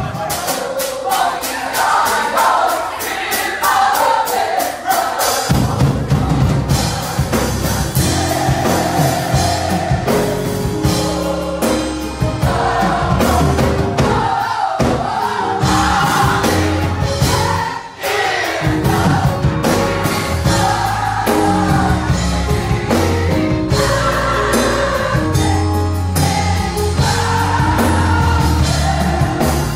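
Gospel choir singing with a live band, drums beating steadily; the bass comes in about five seconds in.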